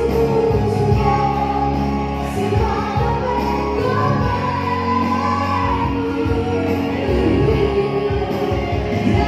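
Music: singing over instrumental accompaniment, with long held notes above a steady bass.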